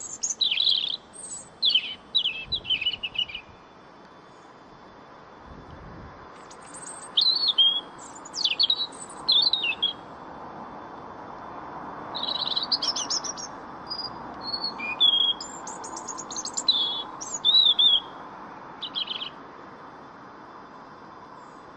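European robin singing: high, thin phrases of warbles and trills in three bursts separated by pauses of a few seconds.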